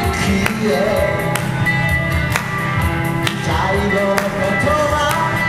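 Live amplified performance of an original song: a singer's voice over a hollow-body electric guitar through PA speakers, with a steady beat accented about once a second.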